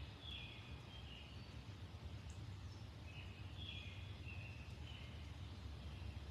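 A songbird sings a few short phrases of high notes, about half a second in and again between three and five seconds in, over a steady low background rumble.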